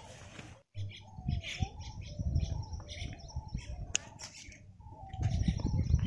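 Brinjal plant leaves and stems rustling as they are handled, with bursts of handling noise, while birds chirp and call in the background.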